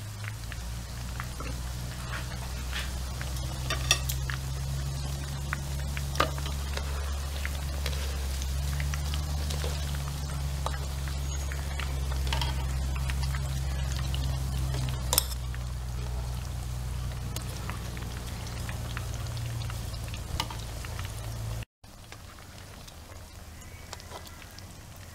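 Tempura-battered catfish fillets deep-frying in hot oil: a steady sizzle with scattered crackles and a few sharper pops. A steady low hum runs underneath and stops with a brief dropout near the end.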